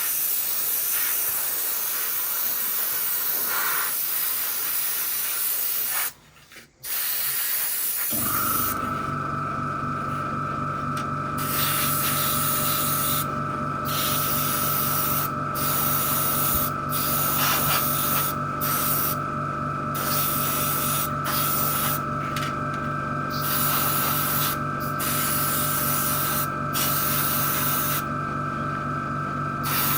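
Airbrush spraying thinned black model paint: a steady hiss that stops briefly about six seconds in. Then a steady motor hum of an air compressor starts, and the spray comes in short on-off bursts over it.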